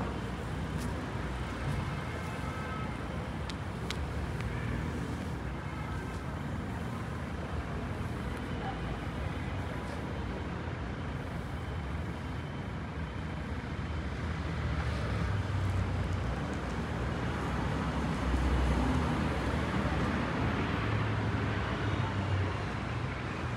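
Street traffic noise: a steady hum of passing cars, louder in the second half as heavier vehicles go by.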